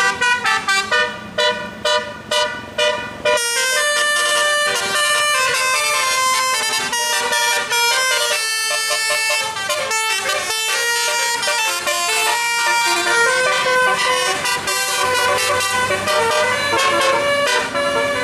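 Bus telolet horn of the basuri type, a multi-tone horn that plays tunes. It gives a string of short toots for the first three seconds or so, then a continuous quick-changing melody of horn notes.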